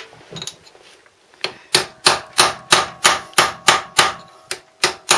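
Light hammer taps, about three a second, starting about a second and a half in after a few faint clinks. The hammer is gently bending the lock-washer tab over the motorcycle's front sprocket nut.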